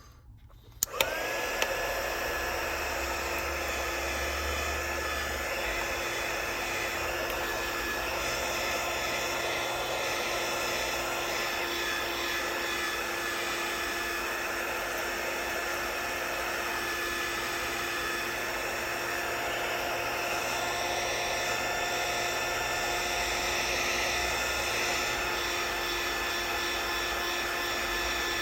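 Hot-air gun switched on with a click about a second in, then running steadily: a constant fan rush with a steady whine through it. It is heating the phone's back glass to loosen the adhesive.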